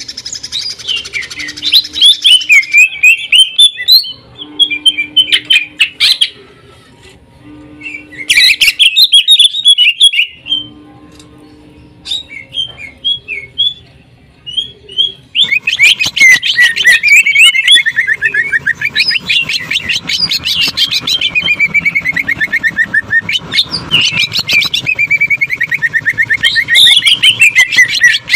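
Cucak ijo (green leafbird) singing. Bursts of fast chattering notes and whistled sweeps, with short pauses in the first half, then a long unbroken run of very rapid trills from about halfway in. This is the 'sewing machine' shot (tembakan) that fanciers prize in this bird's song.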